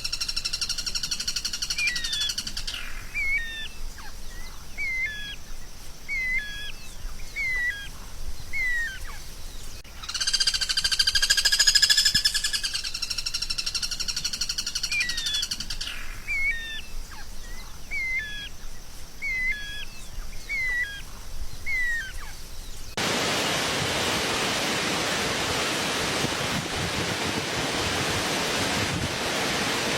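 A songbird calling in a repeating pattern: a buzzy trill of about two and a half seconds, then a run of short hooked chirps, about one a second, the sequence coming round twice. About 23 seconds in it cuts suddenly to a steady hiss of noise.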